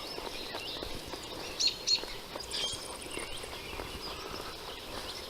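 Songbirds chirping, with two loud short chirps close together about a third of the way in.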